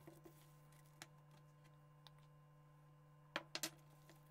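Quiet, with a faint steady hum and a few soft clicks of a fork against a plastic mixing bowl as thick batter is stirred. Near the end, three sharper clicks in quick succession as a spoonful of flour is tipped into the bowl.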